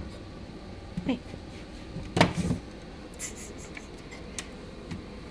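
A rabbit moving about inside a wooden hutch, making scattered light knocks and scratchy rustles, with the loudest knock about two seconds in.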